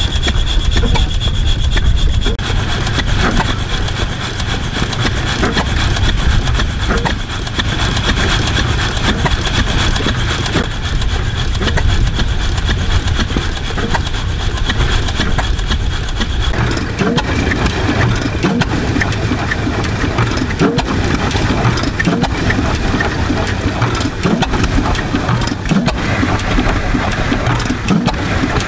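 Antique stationary gas engines running: first a small vertical Fairbanks-Morse engine with spinning flywheels, a steady low chugging with rapid mechanical clatter and a thin high tone. About halfway in the sound changes as a larger horizontal engine takes over.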